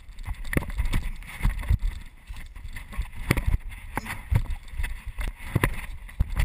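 Irregular footfalls and thumps of a body running, landing and rolling, heard through a body-worn camera's microphone with wind noise and clothing rubbing against it.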